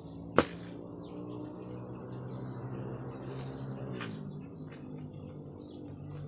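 Insects chirring steadily in a continuous high tone. About half a second in, a bamboo pole being driven down into a post hole gives a single sharp knock.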